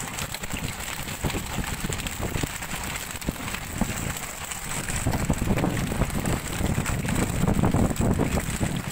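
Wind buffeting the microphone on a boat at sea, a gusty low rumble mixed with sea noise, growing louder about halfway through, with a thin steady high tone throughout.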